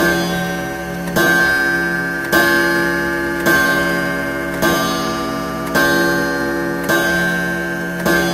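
Clock sound effect: a ringing, bell-like tick struck about once a second, each stroke fading before the next.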